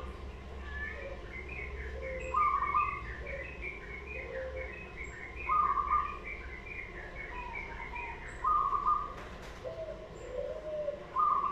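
Zebra dove (perkutut) singing: repeated cooing phrases, each ending in a loud held coo, about every three seconds.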